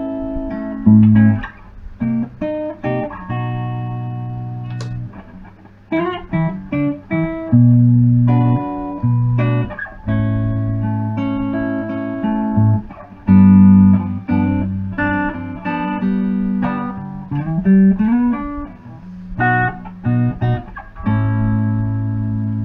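Guitar played through a Big White Monkey Mark 1 "Chimp" hand-wired class A 5-watt tube amp head with two EL84 power tubes and three ECC83 preamp tubes. Picked single notes and chords ring out and die away, with a rising slide near the end.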